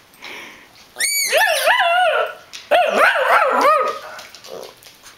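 Shih tzu 'yelling': two drawn-out, wavering howl-like yowls, the first about a second in and the second just before three seconds. He is protesting at another dog that came too close to his bed.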